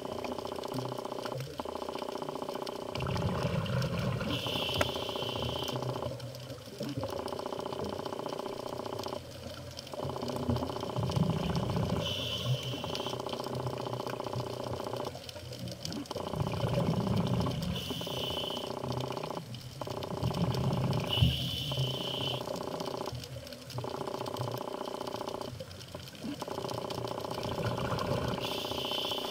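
Scuba diver breathing underwater through a regulator: a bubbling rush of exhaled air about every five to six seconds, some breaths with a short hiss, over a steady hum.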